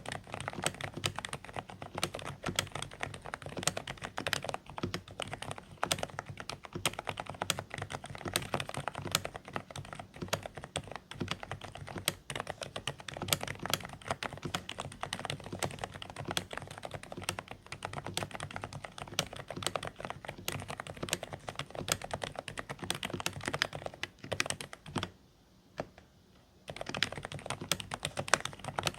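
Steady, fast typing on a Dareu A104 Pro mechanical keyboard with silent (low-noise) beige switches: quiet, slightly muffled keystrokes. It breaks off for about a second and a half near the end, then the typing resumes.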